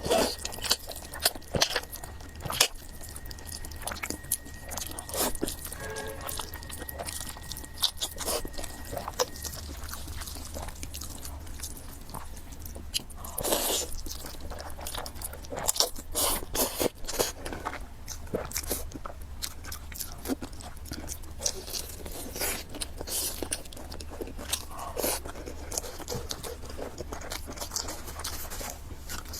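A person eating fried noodles and pork close to the microphone, chewing with frequent crunches and sharp wet clicks. A faint steady high tone runs through about the first third.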